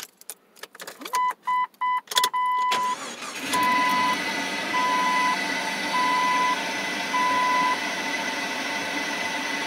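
A key rattles in the ignition, a dashboard warning chime beeps quickly, and the 2001 Jeep Cherokee XJ's engine, breathing through a homemade cowl intake, starts about three and a half seconds in. It then idles steadily at about 1,000 RPM while still cold, and the chime sounds five slower beeps of about half a second each over the idle before stopping.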